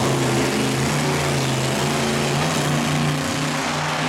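Maximum Destruction monster truck's engine running loud under throttle, its pitch stepping up and down as the driver works the pedal on the run-up to a ramp jump.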